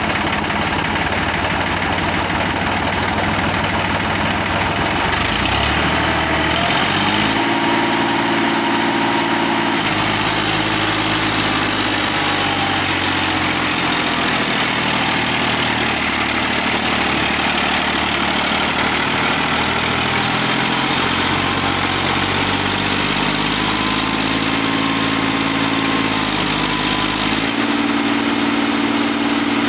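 New Holland 3037 NX tractor's diesel engine running while it pulls a loaded trolley through mud. The revs rise about six seconds in, and the engine note shifts up and down several times after.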